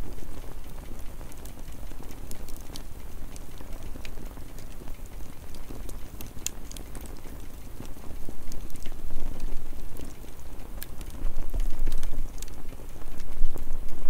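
Small campfire of sticks and twigs crackling, with sharp pops scattered throughout over a low rumble that grows louder near the end.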